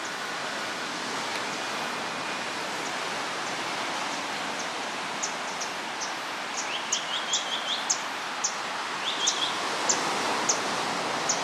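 Steady hiss of surf and wind. From about halfway through, a bird calls over and over in short, high chirps, twice breaking into a quick run of stepped notes.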